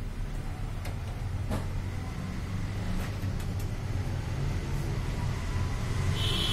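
A steady low hum with a few light clicks and taps. The clicks come from a screwdriver and hands working on the metal parts inside an opened photocopier.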